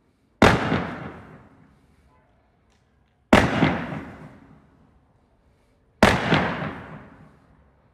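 A 60-shot, 1.2-inch firework cake firing three single shots about three seconds apart. Each is a sudden bang that fades away over a second or two.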